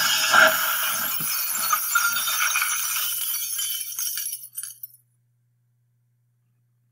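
Breaking-glass sound effect: a loud crash of shattering glass with shards clattering and tinkling, thinning out and cutting off about five seconds in.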